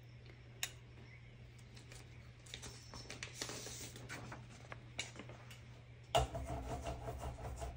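Rubber brayer rolling acrylic paint across a gel printing plate: a soft, sticky crackle of fine ticks that starts a few seconds in and turns louder and rougher about six seconds in.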